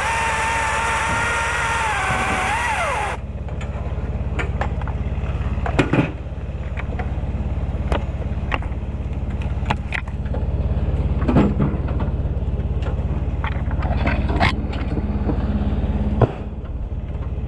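Chainsaw cutting through a rowan limb, its pitch sagging under load as the saw struggles with wood of this size, then dropping away and stopping about three seconds in. After that a steady low engine hum continues, broken by scattered sharp knocks and cracks.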